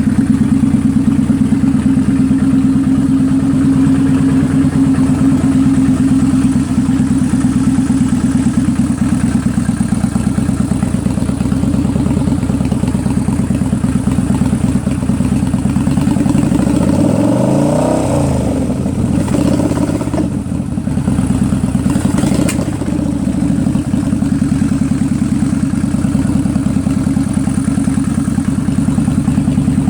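2003 Kawasaki Vulcan 800 Classic's V-twin engine idling steadily, with a brief wavering change in the sound about halfway through. The owner suspects a carburetor misfire that slaps back sharply into the air filter assembly.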